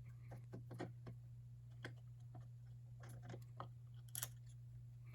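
Faint, scattered light clicks and ticks of a hex wrench and metal parts being handled while the mounting bolts of a telescope drive assembly are removed, with the clearest click just past four seconds in. A steady low hum lies underneath.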